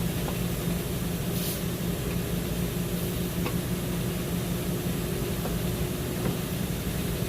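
A steady low mechanical hum over an even hiss, with a faint click about three and a half seconds in.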